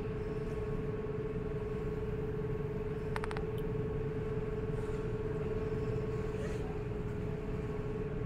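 An engine running steadily: a constant hum over a low rumble, with a short burst of rapid clicks about three seconds in.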